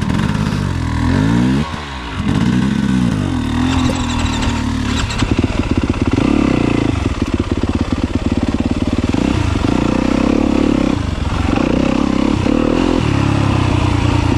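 Yamaha YZ250FX four-stroke single-cylinder dirt bike engine revving up and down at low speed for the first few seconds, then running steadily under throttle with short dips as the throttle is eased and reopened.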